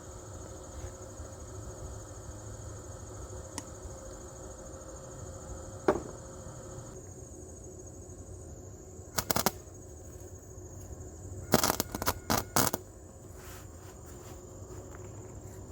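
Flux-core welder (Harbor Freight Titanium 125) striking its arc in short stop-start bursts of a few tenths of a second: one a little before the middle, then a cluster, then several in quick succession. These are the false starts of a rookie repair weld. Crickets chirr steadily underneath.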